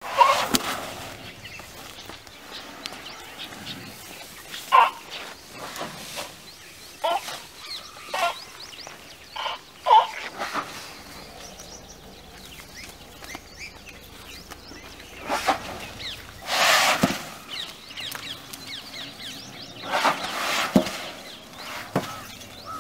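Asian elephants calling: a handful of short, high-pitched squeaks, then three longer, louder trumpeting calls, the loudest about two-thirds of the way through.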